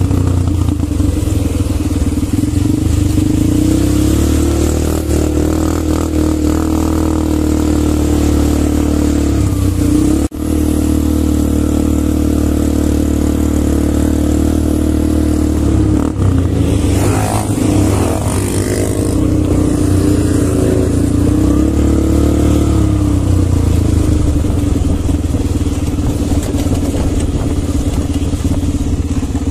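Quad bike (ATV) engines running steadily at close range, with a momentary cut-out about ten seconds in.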